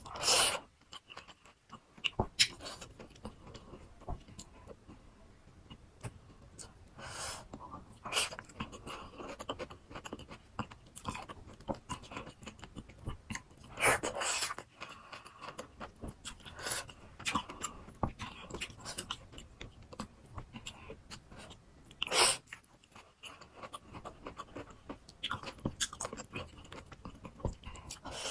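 Close-miked chewing of crunchy raw fruit, with wet crackly crunches throughout and a few louder bites, about four in all.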